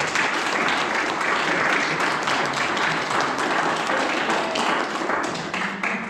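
Audience applauding, many hands clapping steadily, tapering off near the end.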